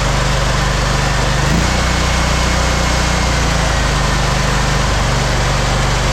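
Pressure washer's gasoline engine running under load while spraying high-pressure water: a steady engine drone under a loud hiss. The engine note shifts about a second and a half in. The machine is running at strong pressure now that two half-closed ball valves have been fixed.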